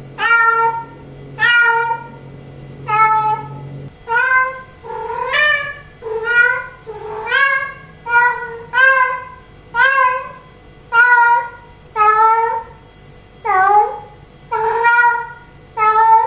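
Female cat in heat calling for a tom: a run of loud, drawn-out meows, about one a second, some bending up and down in pitch.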